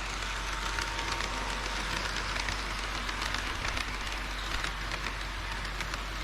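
HO-scale model train running on its track: a steady rushing hiss of wheels and motor, dotted with many small quick clicks as the wheels pass over the rail joints.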